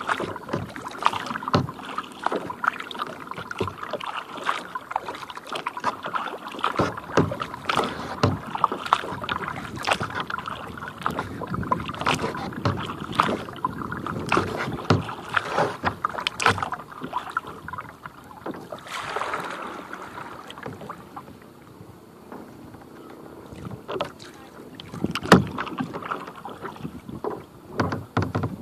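Kayak paddling on lake water: the paddle blades dip and splash irregularly, with drips and small splashes of water close to the hull.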